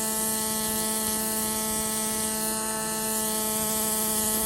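Pneumatic fossil-preparation air tool running with a steady, unchanging buzzing hum over a hiss of air, as it works stone away from an ammonite.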